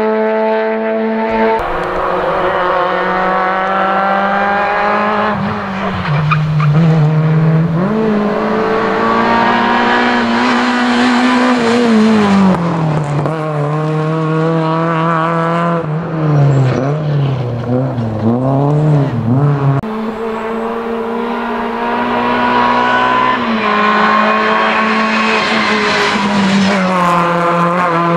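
Rally cars at full stage pace: engines revving hard, climbing in pitch through each gear and dropping sharply on gear changes and lifts, with rapid up-and-down revs through a tight section about midway.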